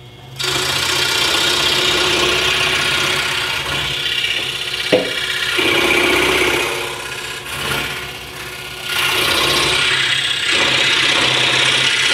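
Seyco ST-21 link-drive scroll saw running, its fine blade cutting through a thin piece of wood. The cutting noise starts about half a second in over a steady motor hum and eases off briefly around the middle, with a sharp click about five seconds in.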